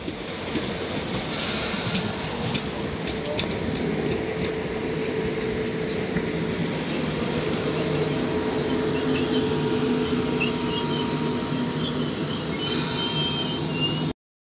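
Southern Class 455 electric multiple unit running past along the platform: steady rolling rumble of wheels on rail with a steady electric motor hum. The sound cuts off abruptly near the end.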